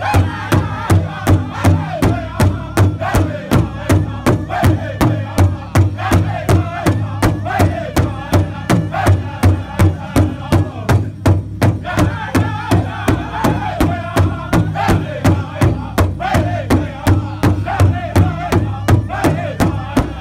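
Powwow drum group singing an intertribal song: several drummers strike a large hide drum in unison at about three beats a second under loud, high-pitched group singing. The singing drops out briefly about halfway while the drumbeat carries on.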